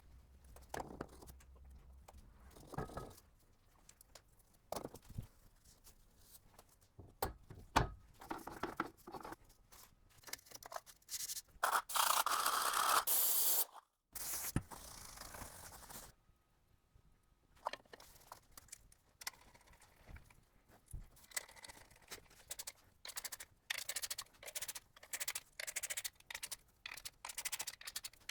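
Hand work on gearbox parts: scattered clicks, knocks and scraping of metal parts and tools. There is a loud hiss lasting about two seconds midway, then a quick run of clicks toward the end.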